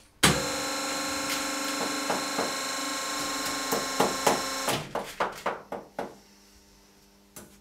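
A shoemaking machine's electric motor starts abruptly and runs steadily with a fixed hum for about four and a half seconds. Then come a series of separate knocks and clicks as the shoe and the machine are handled, then quiet.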